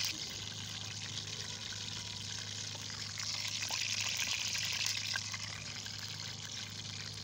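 Pakora batter frying in hot oil: a steady sizzling hiss with scattered small crackles, swelling for a couple of seconds midway as more batter is dropped in by hand.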